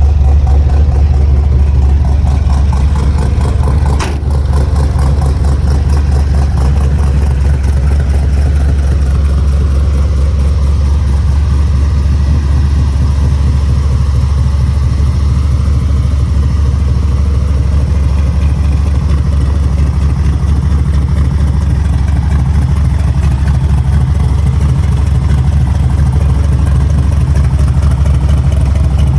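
The C10's 496 cubic-inch big-block V8 idling steadily with a deep, even rumble. There is a brief click about four seconds in.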